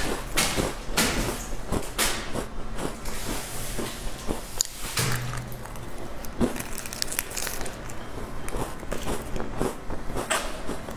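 Plastic snack wrapper crinkling and tearing as it is opened by fingers, mixed with crunchy chewing of a dry cracker, in irregular sharp crackles.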